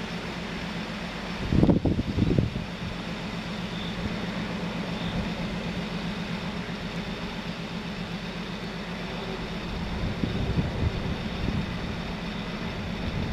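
An M62 diesel locomotive's two-stroke V12 diesel engine works under load as it hauls a train, a steady low drone. Wind buffets the microphone about two seconds in, and again more lightly near the end.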